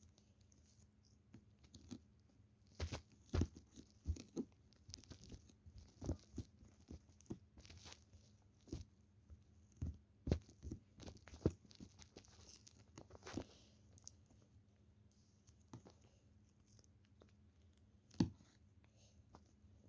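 Slime being squeezed and pressed by hand, giving irregular crunchy pops and crackles. The pops come thickest in the middle, with a single sharp one near the end.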